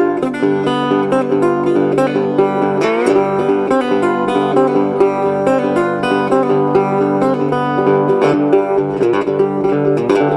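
Background music: an instrumental break of a blues song, with plucked acoustic guitar or banjo picking over a steady rhythm.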